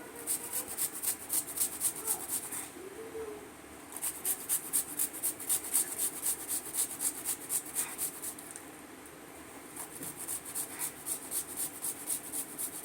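Fresh ginger root being grated on a hand grater: quick rasping strokes, about four or five a second, in three runs with short pauses between.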